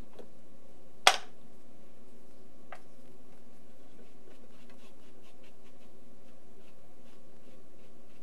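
Faint scratchy ticks of a paintbrush working acrylic paint across a canvas, with a sharp click about a second in and a fainter click shortly after.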